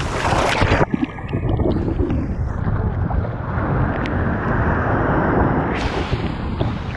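Shallow ocean surf washing and churning around a camera held at the waterline. A burst of splashing foam comes in the first second, then a duller, muffled rush of water, which brightens into splashing again near the end.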